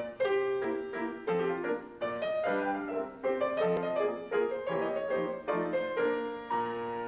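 Solo piano playing a classical piece: chords and notes struck about twice a second, with a chord held and left ringing near the end.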